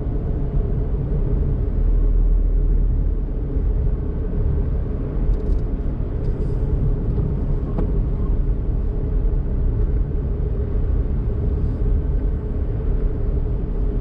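Daihatsu Mira Tocot kei car driving along, its engine and tyres making a steady low drone.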